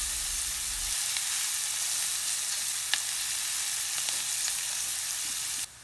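Chopped onion sizzling as it fries in sesame oil in a stainless steel pan, stirred with a silicone spatula that gives a couple of light clicks. The sizzle drops suddenly to a quieter level just before the end.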